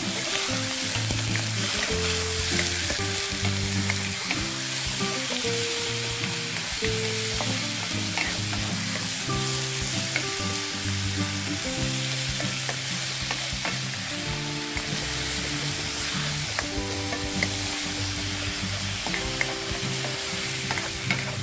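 Pork being seared in hot oil with onion and garlic in a nonstick wok, sizzling steadily, with a wooden spatula stirring and lightly scraping the pan. Background music of held low notes plays underneath.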